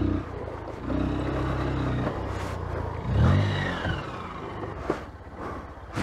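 Honda CBF 150's single-cylinder engine labouring under load as the motorcycle is pushed up a steep dirt slope, the revs rising and falling with a sharper rev a little after three seconds in.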